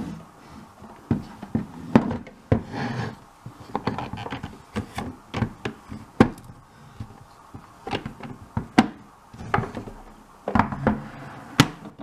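Hard plastic toy barbecue playset being handled: a string of sharp clicks, knocks and scrapes as the case is turned over, its folding plastic legs are snapped out, and it is set down on the table.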